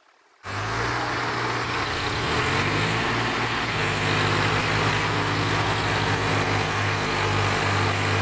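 After a brief dropout at the start, diesel tractor engines run steadily and hard under load, pulling a trailer stuck in mud.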